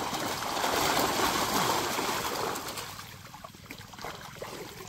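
Water splashing and rushing, swelling for about two seconds and dying down about three seconds in.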